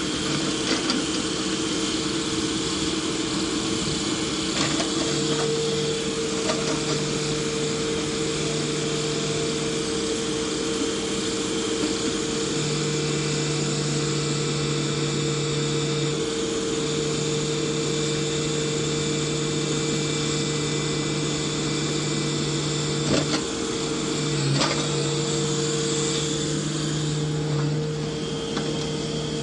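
Kobelco crawler excavator's engine and hydraulics working hard with a steady whine, a lower hum cutting in and out as the machine hauls itself up onto a flatbed truck. Two sharp knocks come about three quarters of the way through.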